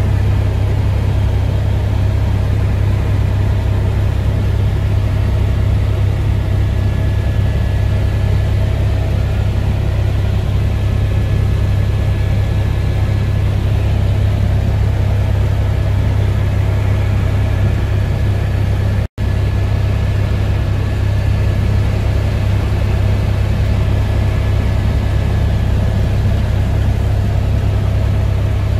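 Airbus H125 (AS350 B3e) helicopter in cruise flight, heard from inside the cockpit: a loud, steady drone of rotors and turboshaft engine with a deep low rumble and a constant whine on top. The sound cuts out for an instant about two-thirds of the way in.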